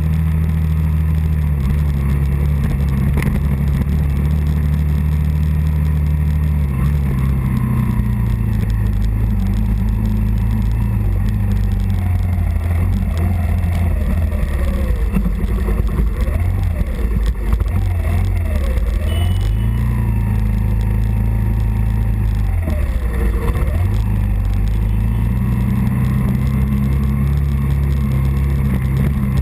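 Early-1980s Suzuki 125 motorcycle engine running while the bike is ridden, its pitch rising and falling with throttle and gear changes. The engine note drops about a quarter of the way in, dips twice in the second half, and settles back to a steady note near the end.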